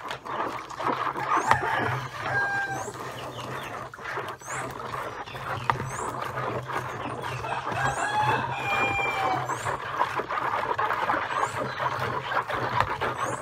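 Chickens clucking, with a longer call about eight seconds in, over the sloshing and scraping of a spatula stirring soap powder into hot water in a plastic basin.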